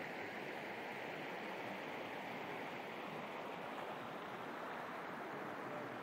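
A river stream running steadily: a constant rushing of flowing water.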